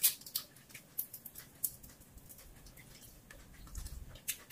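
Cooked shell-on shrimp being peeled by hand: scattered short crackles and clicks of shell breaking away, then chewing and lip-smacking near the end.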